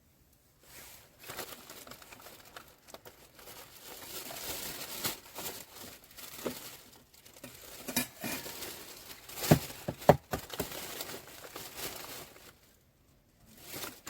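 Plastic packaging crinkling and rustling as it is handled, with a few sharp knocks about two-thirds of the way in.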